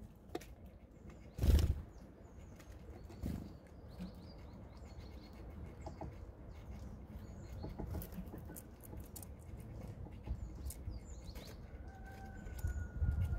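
Small birds at a wooden seed feeder: many faint, short, high chirps, a loud thump of a bird taking off or landing about a second and a half in, and a longer, slightly falling whistled note near the end as birds return.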